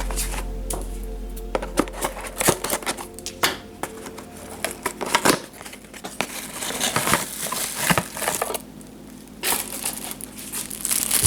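Packaging crinkling and rustling as it is handled, in many short irregular crackles, with background music.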